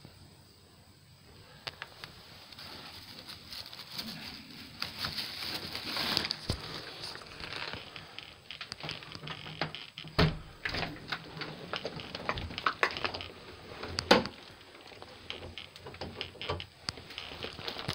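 Rustling and clicking handling noise as a handheld phone is moved around, with two sharp knocks, one about halfway through and one a few seconds later.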